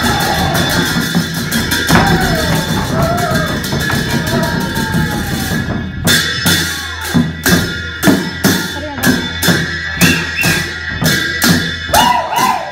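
Live folk dance music led by a hand-beaten barrel drum, with voices singing or calling over it. About six seconds in the mix thins and the drum strokes stand out in a steady beat, about two to three a second.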